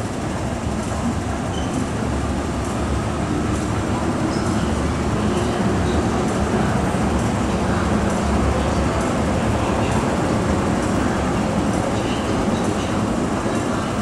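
Steady low rumble of a metro train running through an underground station, swelling slightly in the middle and easing off near the end.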